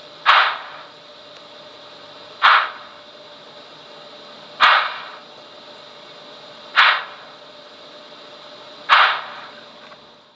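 Sound decoder in an HO-scale model of an SNCF class 241 A steam locomotive crawling at speed step 1, playing slow steam exhaust chuffs through the model's small loudspeaker. There are five sharp, hissing chuffs, evenly spaced about two seconds apart.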